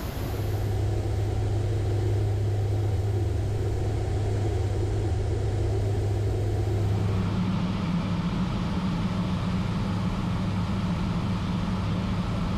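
Steady drone of aircraft engines, heard from inside a C-130 transport. About seven seconds in, the deep hum steps up to a higher one.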